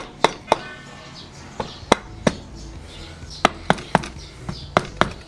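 Sharp taps on the Yamaha DT125 engine's freshly fitted crankcase cover as it is seated on its gasket and dowel pins: about a dozen knocks in quick groups of two or three.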